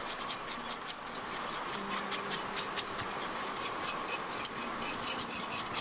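Rapid, irregular scraping strokes, several a second.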